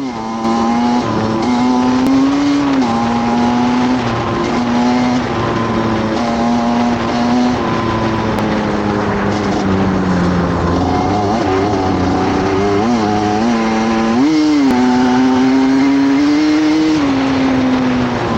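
Motorcycle engine running at a fairly steady speed, its pitch drifting up and down a little, with a few quick throttle blips about thirteen to fourteen seconds in.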